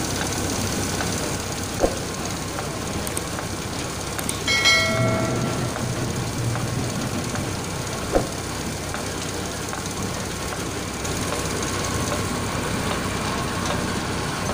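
An orange processing line's roller conveyor and brush rollers running steadily, with two sharp knocks, one about two seconds in and one about eight seconds in, and a brief pitched tone lasting about a second around four and a half seconds in.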